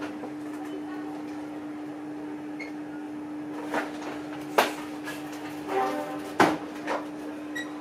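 A metal spoon scooping the soft flesh out of a baked potato half on a plastic cutting board, with a few sharp clicks as the spoon knocks against the board. A steady low hum runs underneath.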